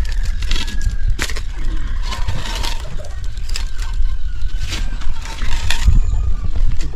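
Low rumble of wind and handling noise on the camera microphone, with scattered clicks and knocks.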